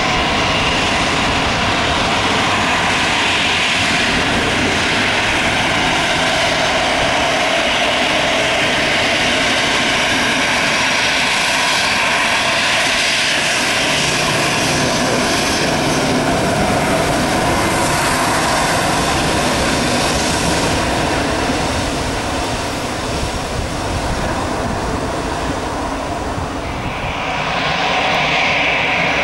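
Airbus A319 jet engines running loud and steady. They ease off a little for a few seconds past the middle and pick up again near the end.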